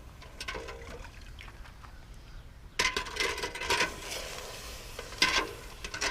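Freshly cast metal shift lever plunged hot into a bucket of water to quench it: a sudden loud sizzling starts about three seconds in and dies down, with a second sharp surge a couple of seconds later.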